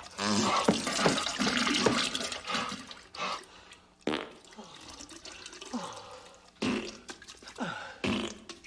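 Wet bathroom noises of a diarrhea gag: a loud rush of water for the first few seconds, then several sudden wet, fart-like bursts that drop in pitch.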